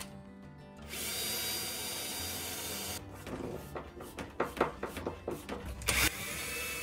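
Power drill running: a steady run of about two seconds, then a stretch of quick, uneven knocks and short whirs, and a steady run again near the end. Background music plays underneath.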